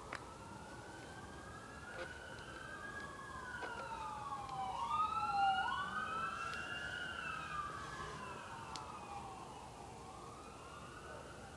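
Several sirens wailing at once, their pitches sweeping slowly up and down and crossing each other; they grow louder toward the middle and fade again. A few faint clicks sound over them.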